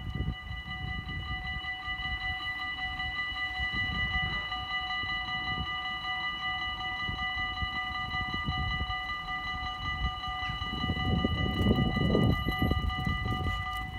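Dutch level-crossing warning bells ringing steadily as a blended set of high tones, over a low rumble that grows louder near the end.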